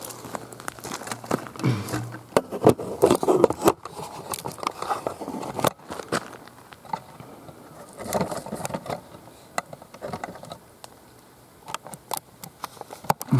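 Camera tripod being set up and adjusted by hand: irregular clicks, knocks and scrapes of handling, with stretches of rustling.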